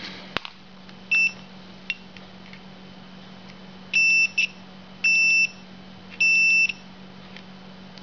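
A digital multimeter's continuity beeper sounds four times, one short beep about a second in and three half-second beeps later on, as the probe tips are held on the ignition switch terminals. Each beep signals a closed circuit between the contacts under test.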